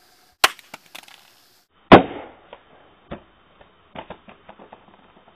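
A smartphone in a Ballistic rugged case strikes concrete with a loud clack about two seconds in. It then bounces and clatters several more times with fainter knocks. A single sharp click comes first.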